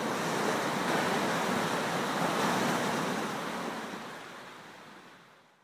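Ocean surf washing in a steady rush of noise, fading out over the last two seconds.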